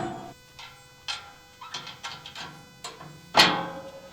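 A series of sharp knocks and clicks, about half a second to a second apart, with a louder knock about three and a half seconds in.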